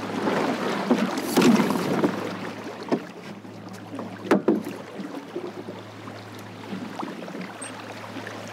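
Water rushing and splashing along the hull of a small plywood sailing skiff under way, with a few short knocks from the boat, the sharpest just after four seconds in.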